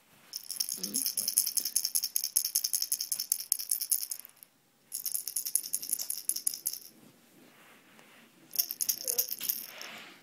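A toy rattle shaken rapidly in three bursts: a long one, a shorter one after a brief pause, and a short one near the end.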